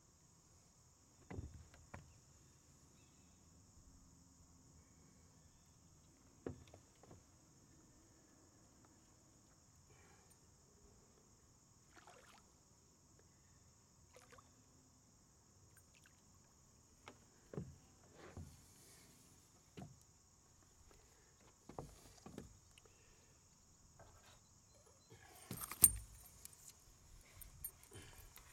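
Quiet pondside sound of fishing: a steady high drone of crickets under scattered soft clicks and knocks from the rod and reel being worked. Near the end a sharp, loud burst and a flurry of small rattles come as the hooked bass is lifted out of the water.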